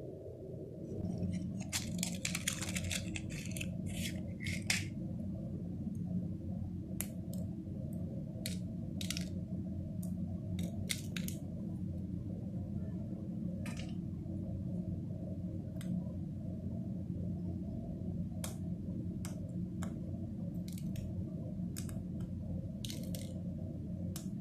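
Small clicks and rustles of handling, a matchstick and crumpled paper moved by hand, over a steady low hum; the clicks come thickest in the first few seconds, then scattered.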